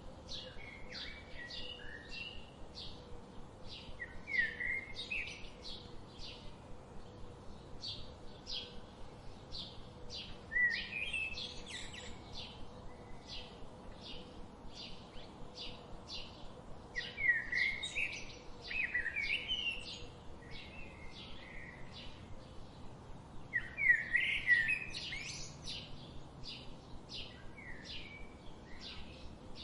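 Songbirds calling: one repeats a short, high chirp about twice a second without pause, while another sings short warbling phrases every few seconds, the loudest near the end.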